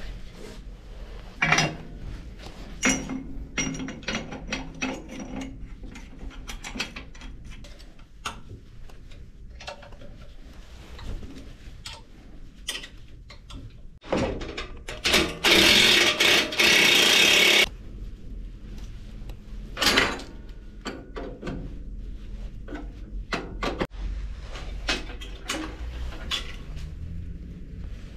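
Workshop handwork with metal parts and tools: scattered clicks, taps and knocks, with a loud steady hiss of about three and a half seconds about halfway through.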